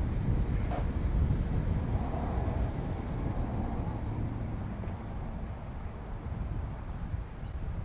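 Wind buffeting the microphone, an uneven low rumble, with a single brief click under a second in.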